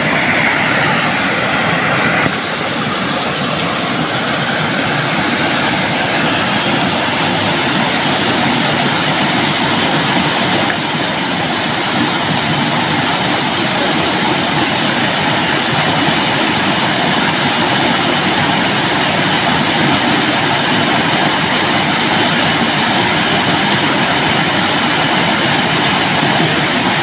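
Steady, loud rushing of a fast-flowing river, an even wash of water noise with no breaks.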